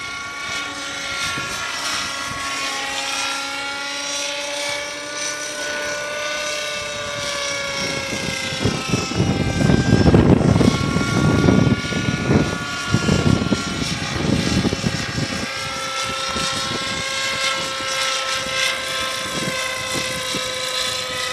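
Radio-controlled model helicopter in flight, its motor and rotors giving a steady whine whose pitch drifts slowly up and down. From about nine to fifteen seconds in, loud gusts of wind buffet the microphone.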